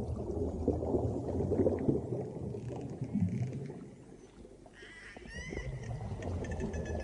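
Deep underwater-style rumble with churning, gurgling water, joined about five seconds in by a high wavering tone with a few short rising glides, like a whale call or sonar sound effect.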